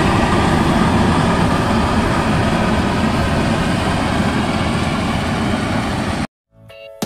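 Maxxi Bimo 102L rice combine harvester running at work, a steady heavy engine and machinery drone that eases slightly as the machine moves away. The sound cuts off abruptly near the end, followed by a moment of silence and the first faint notes of music.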